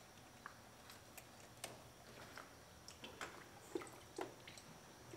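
Near silence, with faint scattered small clicks of hand tools working at a radiator hose clamp and easing the coolant hose off the water pump.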